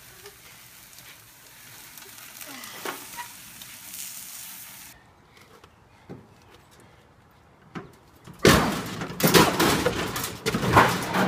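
Flames crackling faintly over a grill, then, about two-thirds of the way in, a loud jumbled crash and clatter of metal lasting a few seconds as a large stainless-steel gas grill tips off a deck onto the ground.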